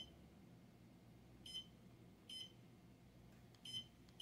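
Digital LED wall clock giving short, high-pitched electronic beeps, a few at uneven intervals.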